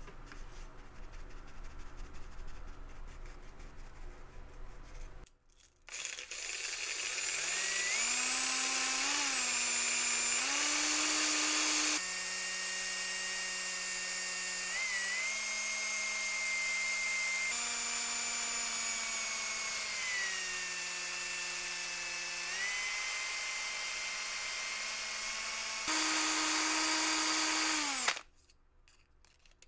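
Small electric power tool running with a steady motor whine, its pitch shifting and dipping as it is loaded against the work. It starts about six seconds in and cuts off abruptly near the end.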